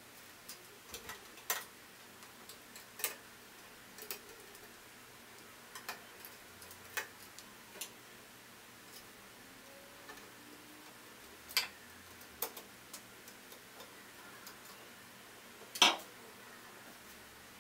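Irregular sharp clicks and small taps, a dozen or so spread at uneven intervals, from hands handling small parts and tools inside the opened embroidery machine. The loudest click comes near the end.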